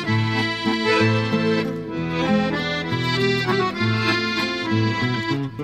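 Accordion playing the instrumental opening of a sailors' waltz, with held chords and melody over a changing bass line.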